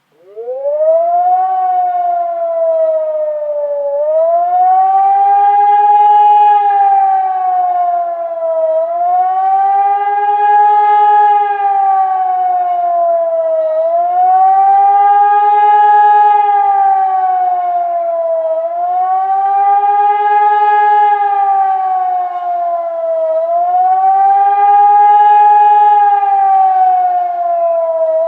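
Hörmann ECN 2400 electronic warning siren sounding the German "Warnung der Bevölkerung" signal, the public alarm for acute danger. It swells up from silence at the start into a wailing tone that rises and falls about every five seconds.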